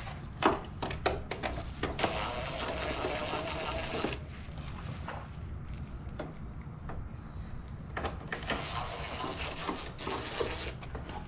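Cordless power driver running to back screws out of a plastic truck grille: two runs of about two seconds each, the first about two seconds in and the second about eight and a half seconds in, with small clicks and knocks of plastic between them.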